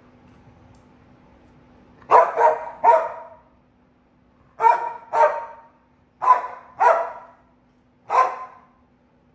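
A dog barking in short, loud barks, about eight of them in twos and threes, starting about two seconds in.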